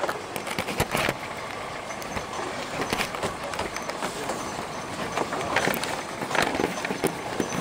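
Off-road vehicle jolting along a rough dirt track: a steady running noise with frequent knocks and rattles as it goes over the bumps, heard from its open cargo bed.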